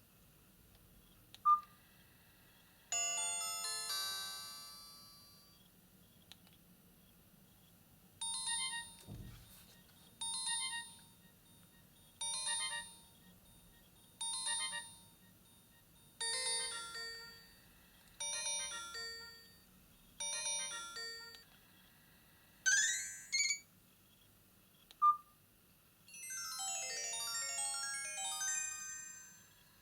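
Nokia 5310 (2020) phone's loudspeaker playing ringtones one after another, with single key beeps between them. A quick falling arpeggio is followed by a short melodic phrase repeated about every two seconds, seven times, then a fast rising sweep. Near the end comes a dense, tumbling run of chime notes.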